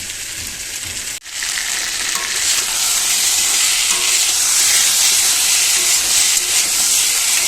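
Chicken sizzling as it is slow-fried in a spiced masala in a pan (Bengali kosha mangsho). There is a steady high hiss that cuts out briefly about a second in, then comes back louder.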